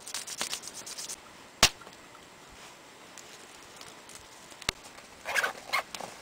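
Small wood fire crackling in an Esbit pocket stove fitted with aluminium wind walls, while wood shavings and twigs are fed into it and handled. A quick run of small crackles in the first second, a sharp single snap about one and a half seconds in and another near the five-second mark, then brief rustling of wood near the end.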